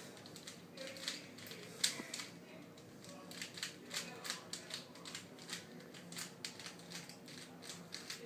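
Rubik's Cube being turned quickly by hand: a rapid, irregular run of small plastic clicks and scrapes as the layers snap around during the last moves of a solve.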